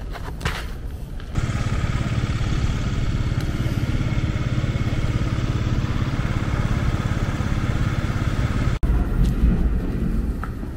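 Steady running noise of a motor vehicle with a strong low hum, starting about a second in. A sudden brief dropout near the end is followed by a lower rumble.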